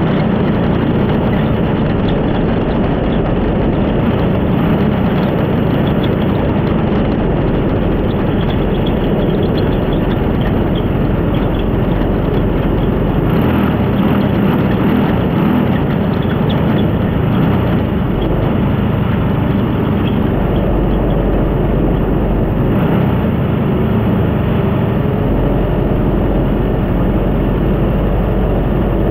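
The D1 JRX dirt-track race car's engine, heard loud from onboard the car, running steadily on the slow-down lap after the checkered flag.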